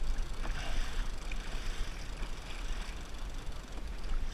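Wind buffeting the microphone with a deep, unsteady rumble, over water lapping and splashing around a kayak hull on choppy sea.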